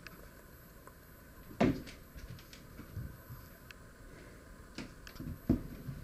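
A cat jumping onto wooden dressers: a heavy thump about a second and a half in as it lands, a lighter knock near five seconds and another sharp thump about five and a half seconds in, with faint knocks of paws on the wood in between.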